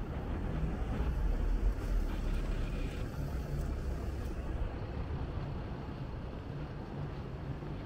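Low rumble of road traffic, swelling to its loudest about a second and a half in and then settling to a steady background.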